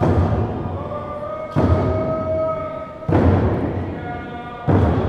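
Tlingit hide hand drum struck in a slow, steady beat, four strokes about a second and a half apart, each ringing out. Voices sing a traditional song over the drum, holding long notes between strokes.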